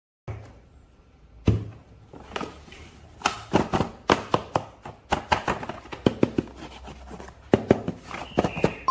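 Hands handling toy packaging and plastic figure parts: a quick, irregular run of taps, clicks and knocks, with one sharper knock about a second and a half in.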